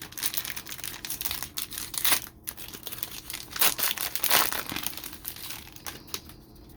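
Plastic wrapping of trading-card packaging crinkling and tearing as it is opened by hand, in dense crackles that die down near the end.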